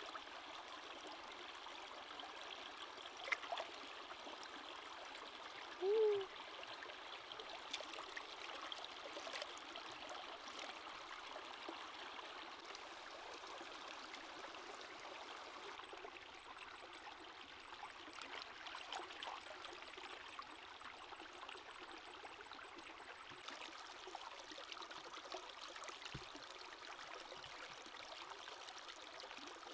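A shallow stream running steadily over rocks while hands splash and rinse food in the water. A short chirp that bends up and down, about six seconds in, is the loudest sound, and a sharp click comes a few seconds before it.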